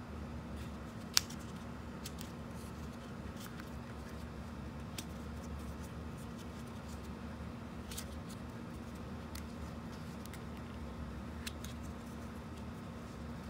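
Two-colour counters being picked up, flipped and set back down on a ten-frame board: scattered light taps and clicks, the sharpest about a second in, over a steady low hum.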